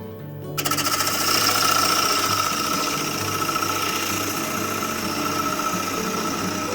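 Oak bowl blank spinning on a Record Power Coronet Regent lathe with a tool working against the wood: a loud, steady rasping noise that starts about half a second in and eases briefly near the end.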